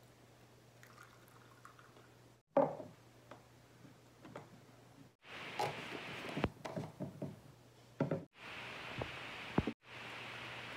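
Liquid poured from a thermos flask into a small cup, with knocks as the flask and cup are handled and set on the table. A sharp knock comes about two and a half seconds in, and a steady hiss runs near the end.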